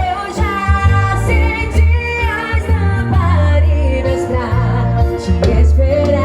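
Gospel worship song playing loud: a sung melody over a heavy, steady bass line.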